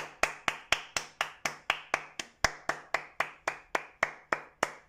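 One person clapping hands steadily, about four even claps a second, applauding.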